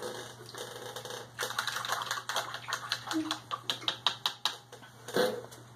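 Quick, irregular light clicks and taps, several a second, of small hard objects being handled.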